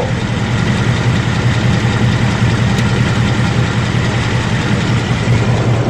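Ford Mustang GT's third-generation Coyote 5.0 V8 idling steadily, with a faint tick about three seconds in. The owner takes it for a toned-down version of the Coyote engine tick.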